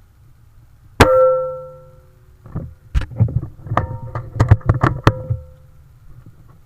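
An air rifle shot: one sharp crack about a second in, with a metallic ring that fades over about a second. From about two and a half seconds in come roughly ten quick metallic clicks and clanks, some of them ringing at the same pitch as the shot, under a low steady rumble.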